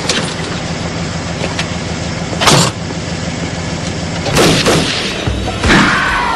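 A car engine idling steadily, broken by several loud bangs: one about two and a half seconds in, a close pair past the middle, and one more near the end.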